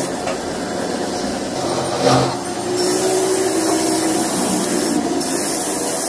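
Bench grinder motor running with its wire wheel scraping against the steel flywheel of a motorcycle crankshaft: a steady hissing scrape over the motor's hum, with one louder scrape about two seconds in.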